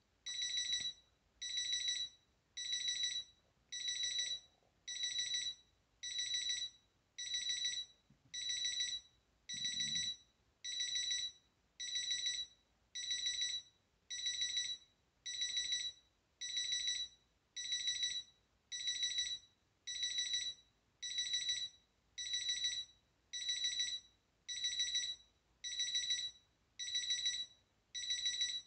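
Capello Big Time CA-35 digital alarm clock sounding its alarm: short bursts of rapid, high-pitched electronic beeps, repeating steadily about once a second.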